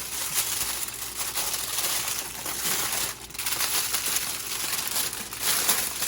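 Aluminium foil crinkling and rustling as it is folded and crimped around a rack of pork ribs, with a brief pause about three seconds in.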